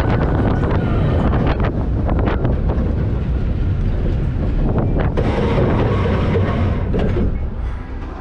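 Roller coaster train running on steel track, heard from on board: a loud, steady rumble of wheels with repeated clicks and knocks, and air rushing over the microphone. The rumble eases near the end.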